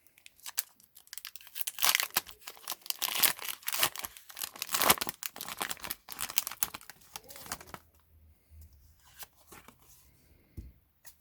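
A foil Pokémon booster pack wrapper being torn open and crinkled, with dense crackling for about six seconds. It then drops to quieter handling with a few light clicks near the end.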